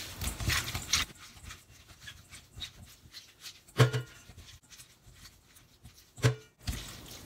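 Salted kanpyo (dried gourd strips) being rubbed and squeezed by hand in a stainless steel bowl: wet rustling and squishing, with two short low thumps about four and six seconds in.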